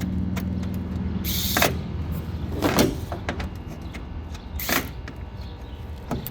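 Vessel electric ratchet working a fastener: three short noisy bursts, roughly a second and a half to two seconds apart, over a low hum.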